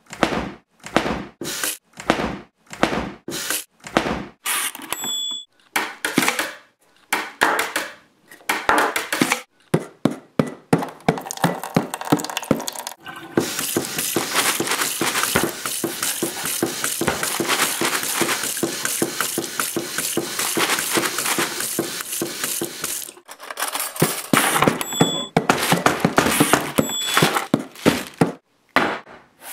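Kitchen sounds arranged into a beat: dishes, pots and utensils knocked and clinked in an even rhythm of about two hits a second, then a steady hiss lasting about ten seconds before the knocks come back.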